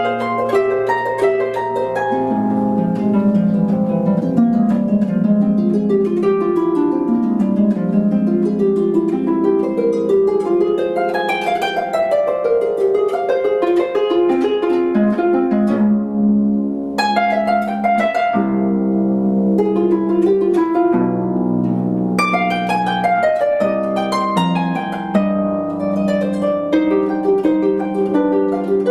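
Solo concert pedal harp playing a classical piece, with quick runs of plucked notes that ring on over lower bass notes.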